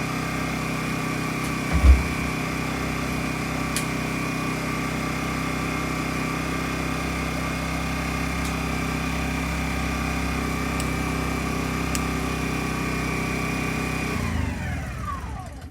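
Honda EU10i inverter generator's small four-stroke engine running steadily, then switched off about 14 seconds in, its pitch falling away as it winds down to a stop. A single low thump about two seconds in.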